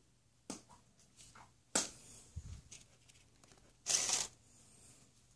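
Handling noises of a small plastic toy figure: a few light clicks and taps as it is turned in the fingers, with one sharp click. About four seconds in comes a louder, brief plastic scrape as the figure is set into a compartment of a plastic toy truck carry case.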